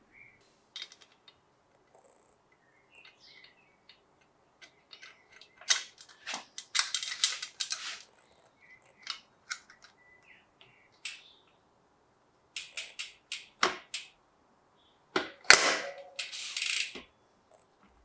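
Sharp metallic clicks and clatter of tools and bicycle parts being handled during a bike build, in scattered bursts, with a dense run of rapid clicking about six to eight seconds in and another near the end.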